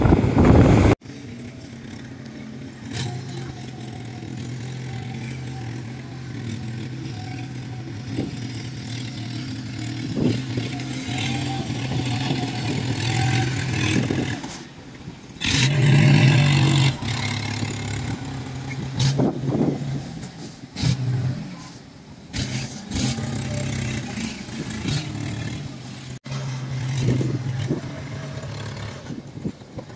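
Engine of a tracked farm carrier loaded with rice sacks running across the field, its low steady hum swelling and easing, with scattered knocks and clanks. The first second is loud wind noise before the sound cuts.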